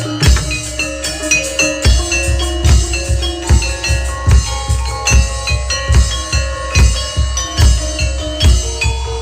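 Loud music of ringing metallophone notes over a heavy bass-drum beat a little more than once a second, in the style of Javanese gamelan.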